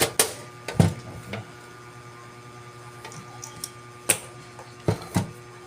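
Several sharp, irregular knocks and clacks, two close together near the end, over a steady electrical hum.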